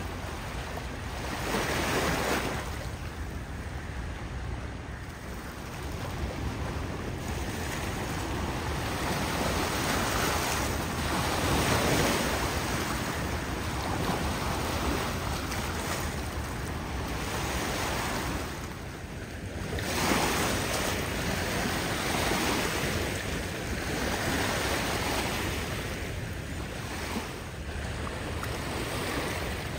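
Small waves washing over rocks and onto a pebble shore, surging and ebbing every several seconds, loudest about two seconds in, around twelve seconds and at twenty seconds.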